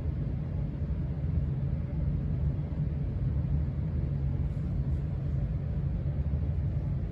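HVAC system running with a steady low rumble, loud in the background.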